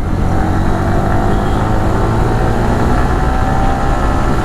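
Motorcycle engine running at a steady pitch.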